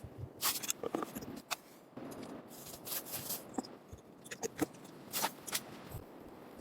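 Irregular crisp rustling and scraping with short sharp clicks, like something being handled close to the microphone.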